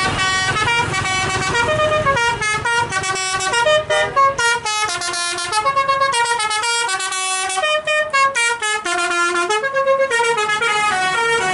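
A bus's telolet basuri musical horn playing a quick tune of stepped notes, each held a fraction of a second, over a low rumble in the first few seconds.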